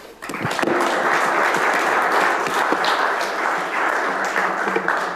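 Audience applauding, a dense patter of many hands clapping that builds up quickly and dies away near the end.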